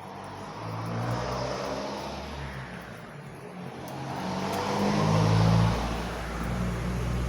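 Road vehicles passing by, engine hum and tyre noise swelling twice; the louder pass peaks about five seconds in and falls away quickly.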